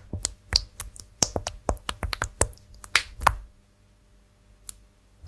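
Computer keyboard being typed on: a quick run of crisp key clicks, several a second, that stops about three and a half seconds in, with one lone keystroke near the end.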